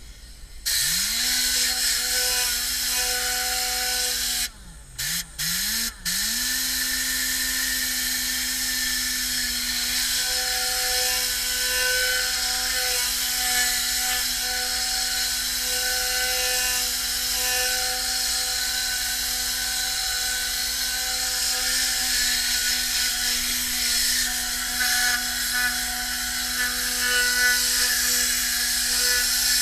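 Tornador air-powered cleaning gun running on compressed air: a loud hiss with a steady hum from its whirling tube. It starts about half a second in. Around five seconds in the trigger is let off twice briefly, and the hum sinks away and climbs back each time the gun is squeezed again.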